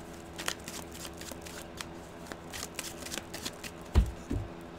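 Tarot cards being shuffled by hand: a rapid run of small crisp clicks and riffles. A low thump about four seconds in, the loudest sound.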